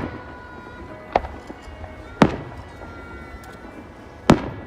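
Three sharp bangs of fireworks bursting, a second or two apart, each with a short echoing tail; the last two are the loudest. Background pop music plays under them.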